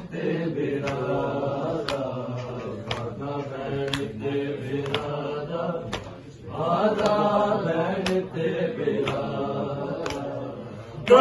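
Group of men chanting a Punjabi noha together, with sharp chest-beating (matam) strikes about once a second keeping the rhythm. The chanting breaks off briefly about six seconds in, then resumes.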